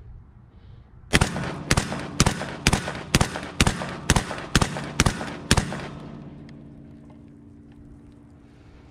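Ten suppressed 12-gauge shots fired rapidly, about two a second, from a Black Aces Tactical FD12 semi-automatic bullpup shotgun fitted with a SilencerCo Salvo 12 suppressor. The gun cycles through the magazine without a stoppage. A low rumble fades after the last shot.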